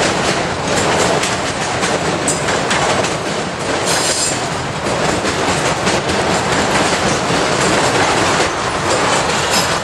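Freight train of enclosed autorack cars rolling past, steel wheels clacking steadily over rail joints. A brief high wheel squeal comes about four seconds in.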